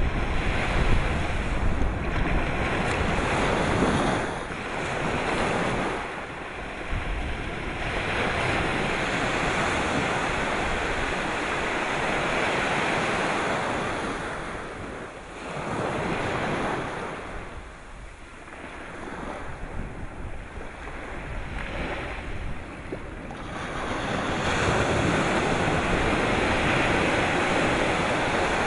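Sea waves breaking and washing in, a rushing that swells and fades every few seconds, with wind buffeting the microphone.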